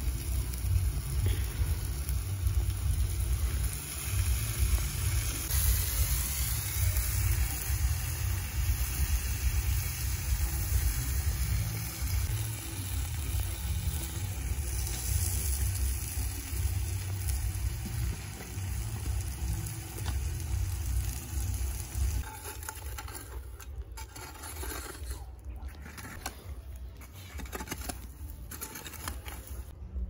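Wind rumbling on the microphone, with a steady hiss above it. The rumble eases after about 22 seconds, and a few light clicks come through.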